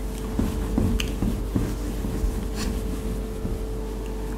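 A whiteboard being wiped with a cloth: a few short rubbing strokes over a steady hum.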